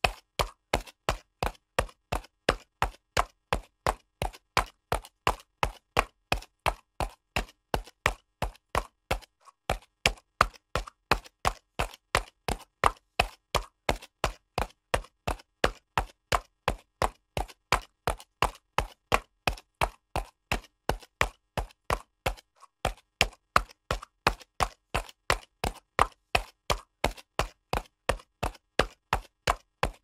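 Horse's hooves trotting on concrete: a quick, even run of sharp clip-clops with a brief break twice.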